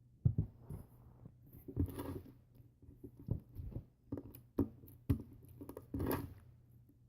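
Slime being kneaded and squished by hand as activator is worked in, giving irregular sticky squelches and sharp little pops.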